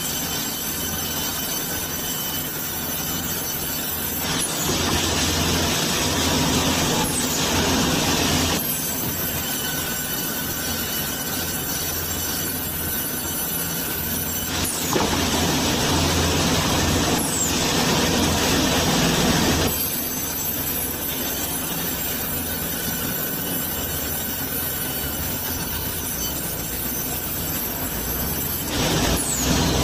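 Horizontal band sawmill running and cutting through a large log: a steady machine hum with the blade's hiss and thin whine, growing louder and harsher in spells of several seconds.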